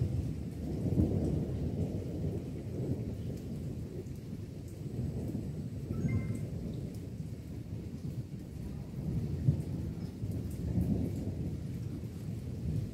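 Thunder rumbling in long rolls that swell and fade several times, with rain falling throughout.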